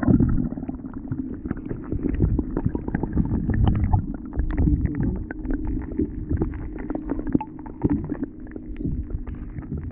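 Muffled underwater sound from a camera held under the surface: a low rumble of moving water with many small clicks and crackles throughout.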